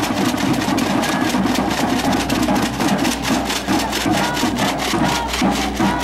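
A fast, even rattling clatter, several strokes a second, running steadily, with a few brief high tones over it.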